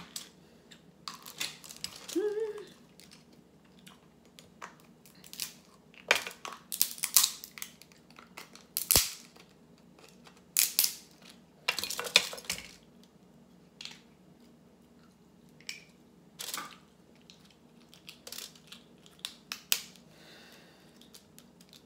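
Snow crab legs being cracked and their shells snapped apart by hand close to the microphone: a string of sharp cracks and crunches at irregular intervals, loudest and most frequent in the middle stretch.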